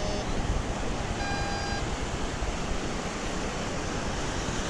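Steady beach surf and wind noise, with a short metal-detector beep at the start and a longer detector tone about a second in.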